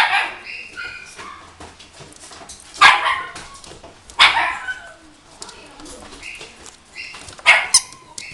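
Toy poodle puppy barking sharply four times, with short high-pitched yips in between.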